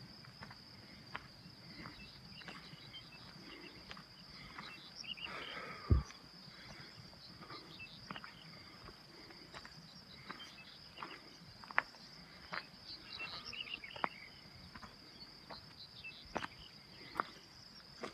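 Insects chirring in one steady, high, even tone, with footsteps crunching irregularly over stony ground and one louder knock about six seconds in.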